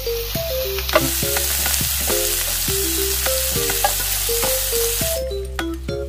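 Kimchi sizzling and frying on a hot grill plate, with a few light clicks of a utensil; the sizzle cuts off suddenly about five seconds in. Light background music with a melody plays throughout.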